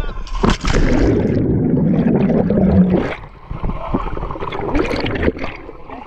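A person plunging into the sea pool: a splash of water entry about half a second in, then a loud churn of bubbles and gurgling around the microphone for a couple of seconds, followed by lighter sloshing and splashing at the surface.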